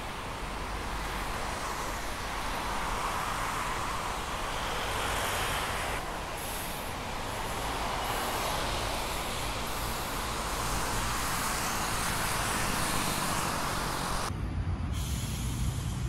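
Road traffic noise: a steady rush of passing vehicles that slowly swells and eases.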